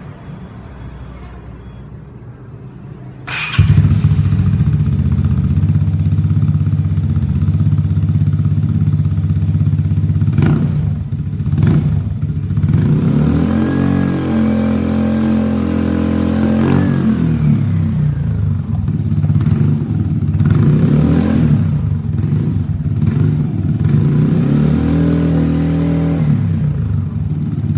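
Vespa Primavera scooter's single-cylinder engine running through a Prospeed Black Series aftermarket exhaust with its dB killer removed. It goes loud suddenly about three seconds in, then idles with repeated throttle blips that rev it up and back down.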